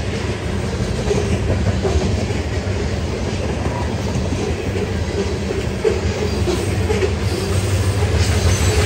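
Freight train tank cars rolling past close by: a steady rumble of steel wheels on rail with clickety-clack over the rail joints and an occasional faint wheel squeal.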